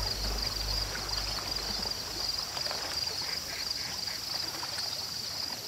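Nature ambience of gently moving water with a steady high-pitched trill over it, as the last low notes of the background music die away in the first second or so.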